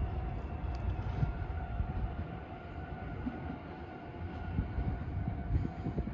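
Electric train running past on the rails: a steady low rumble with a steady whine over it, and uneven knocks growing near the end.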